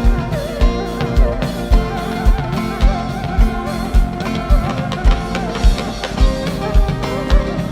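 Music from a band with guitar and drum kit, the bass drum hitting a steady beat a little under twice a second under sustained instrument notes.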